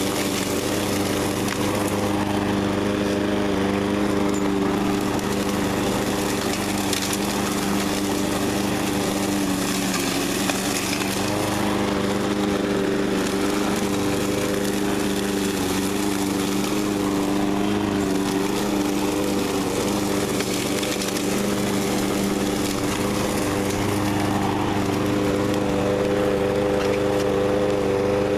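Troy-Bilt TB360 walk-behind lawn mower's small engine running steadily under load, mowing through dry leaves and grass with the side-discharge chute fitted.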